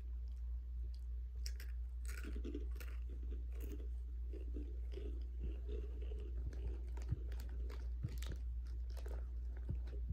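Takis rolled tortilla chips being bitten and chewed, a run of irregular crisp crunches, over a steady low hum.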